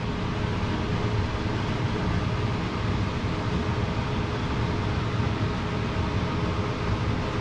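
Steady hum and hiss of a running fan, with a faint constant drone under it.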